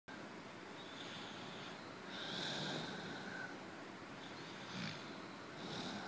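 A person snoring: a few separate rasping breaths, the loudest a little after two seconds in, carrying a thin whistle.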